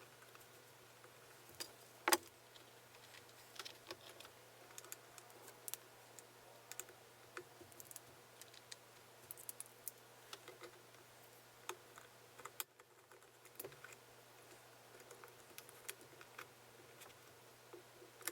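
Faint, scattered light clicks and taps from small parts being handled, with one sharper click about two seconds in, over a steady low hum.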